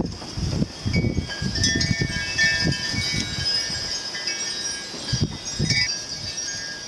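Wind chimes ringing: several metallic tones at different pitches overlap and fade, with a low rumble of wind on the microphone.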